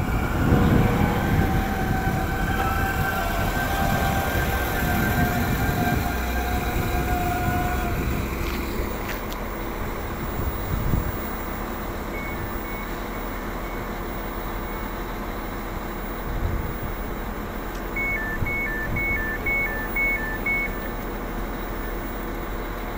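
A Northern passenger train pulling out of the platform, its engine and wheels loud with a steady whine at first, then fading over the first eight seconds or so. A two-tone electronic beeping sounds briefly, then again for a few seconds near the end.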